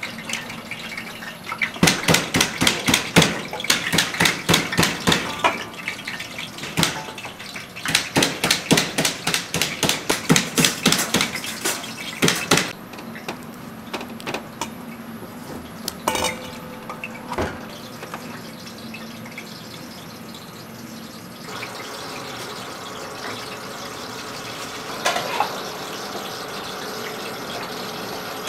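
Kitchen work sounds: a long run of rapid, sharp knocks for the first twelve seconds or so, then a few scattered clicks. Water then runs steadily from a tap for the last several seconds.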